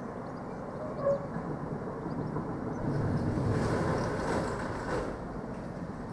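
Steady low rumble of delivery vehicles working in a goods yard. It swells for about two seconds from three seconds in, with a short sharp sound about a second in.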